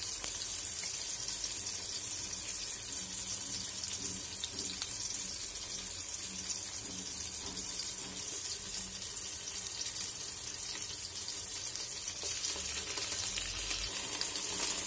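Whole spices, bay leaves and chillies sizzling steadily in hot oil in a steel pot.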